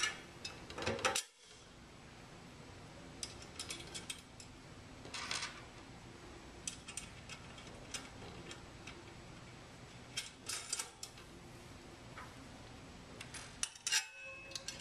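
Scattered light metallic clicks and clinks as 5/16 bolts, nuts and lock washers are fitted by hand to a stainless steel sampler housing, over a low steady background hum.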